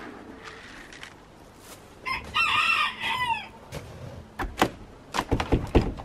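A rooster crows once, a drawn-out call that falls away at the end. Then comes a run of sharp knocks and taps as the wooden coop door is worked by hand.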